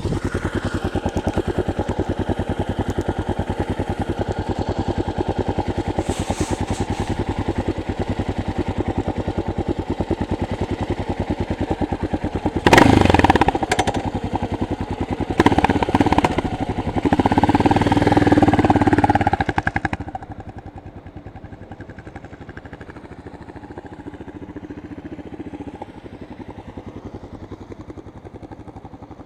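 Yamaha SRX 600's single-cylinder four-stroke engine running with an even, steady thumping beat. It is revved sharply twice around the middle, then runs hard for a couple of seconds before dropping back much quieter.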